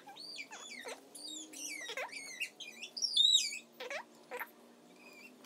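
Marker squeaking against a plastic tabletop as a child draws letters: a run of short, high squeaks sliding up and down in pitch, thinning out near the end.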